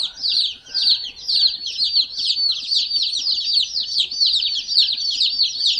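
A brooder of about two dozen newly arrived baby chicks peeping constantly: many high peeps overlapping without a break, each sliding down in pitch.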